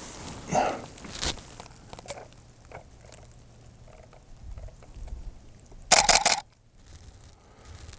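Soft rustling of grass and handling, then about six seconds in a camera shutter fires in a quick burst of several clicks.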